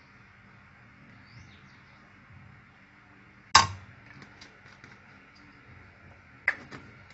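A glass oil bottle set down with one sharp clink about halfway through, then two lighter clinks close together near the end.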